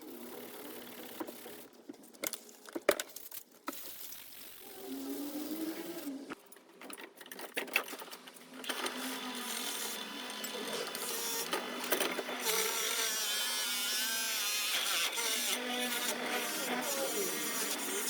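Small electric polishing tool running, buffing metal parts, with handling clicks and knocks in the first seconds. From about nine seconds in it runs steadily and louder.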